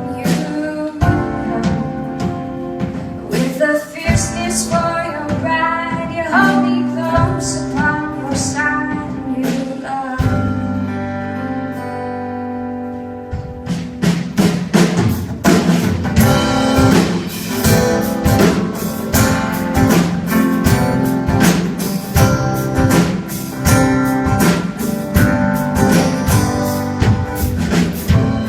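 A song with a woman singing over guitar and drum kit; the drums drop out for a few held chords about ten seconds in, then come back fuller.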